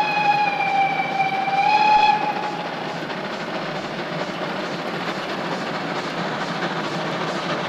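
Steam whistle of the three-cylinder 2-10-0 freight locomotive 58 311 blowing one long steady note that dips slightly in pitch and cuts off about two seconds in. After it the locomotive's exhaust is heard working steadily as it climbs the grade.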